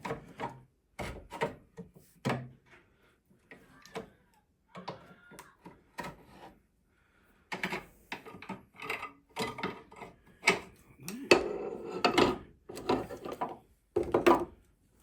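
Irregular metal knocks and clanks of hand tools working a bent steel bracket as it is levered straight, with a busier, louder run of clattering about three quarters of the way through.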